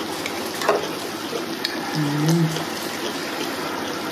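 Food cooking in an electric hotpot: a steady bubbling, sizzling hiss, with a few light clicks of wooden chopsticks against the pot. A short low hum, like a hummed voice, sounds about two seconds in.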